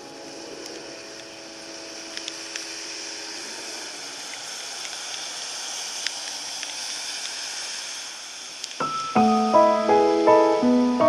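Background piano music: a held chord fades out over the first few seconds, then a stretch of steady rain hiss with a few faint ticks, and about nine seconds in a new piano phrase of repeated notes starts loudly.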